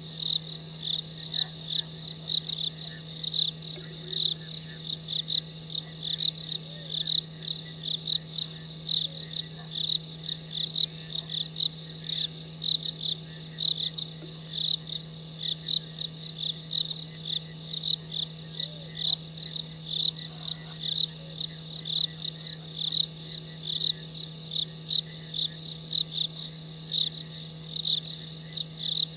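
Cricket chirping in an even, unbroken series of short, high-pitched pulses, over a steady low hum.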